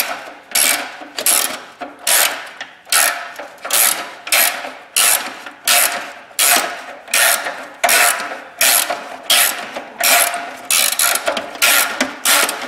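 Ratcheting box-end wrench swung back and forth in short strokes, each stroke a burst of ratchet clicking, about one every 0.7 seconds and a little quicker near the end, as it turns a stud installer to thread a new stud into the exhaust flange.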